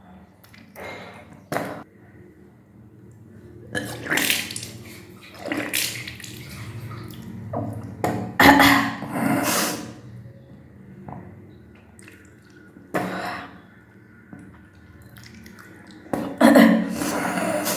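A person retching and bringing up swallowed water in about six separate gushes, gagging sounds with water splashing out, the loudest bursts about halfway and near the end. This is the induced vomiting of kunjal kriya, the yogic cleanse of the food pipe and stomach.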